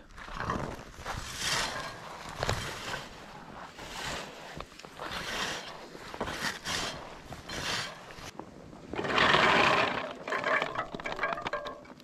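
Handmade cranberry combine (berry scoop) pushed repeatedly through bog moss and cranberry vines: a series of rustling strokes about once a second, the longest and loudest about nine seconds in.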